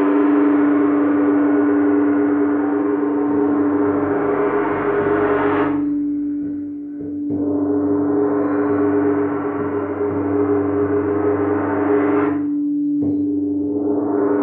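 Crystal singing bowls ringing: one steady tone held throughout, under a shimmering wash of overtones that swells and breaks off twice, about six seconds in and again about twelve seconds in, then starts to build once more.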